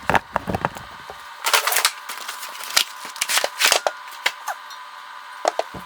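A cardboard package being handled and opened: a run of irregular clicks, knocks and short crinkling, tearing rustles.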